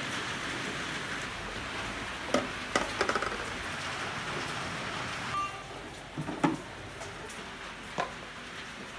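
Food-preparation sounds: a few sharp knocks and clicks of a knife and utensils on a cutting board and plastic container, over a steady hiss that drops about five and a half seconds in.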